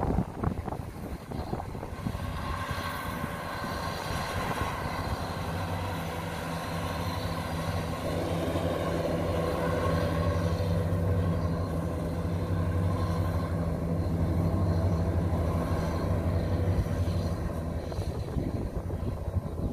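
Kubota DC-93 combine harvester's diesel engine running steadily under load while cutting rice. It grows louder over the first several seconds and eases off near the end.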